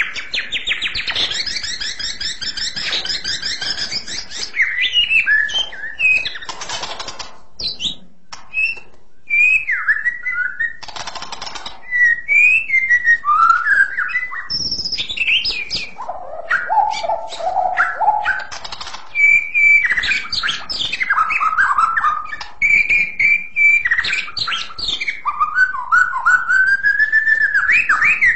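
White-rumped shama singing a long, continuous song of clear, shrill, high-pitched whistled phrases that glide up and down, with rapid trilled passages and short sharp notes mixed in.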